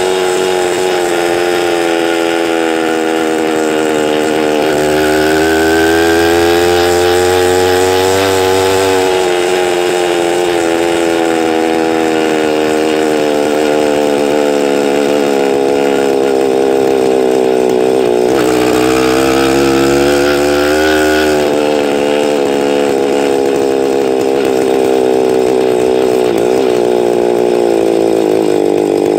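Small engine of a motorized bicycle running while the bike is ridden, its pitch dipping and climbing again several times as the throttle changes.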